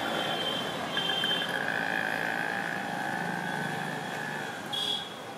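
Busy city street traffic: motorbikes and auto-rickshaws running past, with a steady engine hum and short horn blasts now and then.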